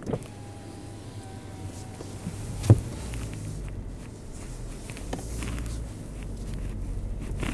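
Low rumble of a Chery Tiggo 8 Pro rolling slowly over a bumpy grass track, heard from inside the cabin, with a single sharp knock a little before the middle and a few faint clicks.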